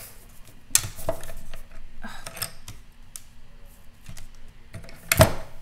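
Hands handling plastic cutting plates, metal dies and cardstock at a die-cutting machine: a sharp click about a second in, then rustling and scraping, and a louder knock near the end as the plate stack is set in the machine.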